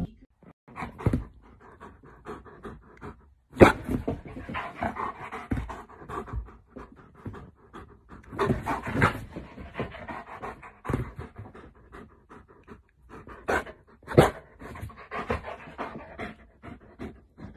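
A husky-type dog panting close to the microphone, in uneven spells of quick breaths with a few sharp clicks.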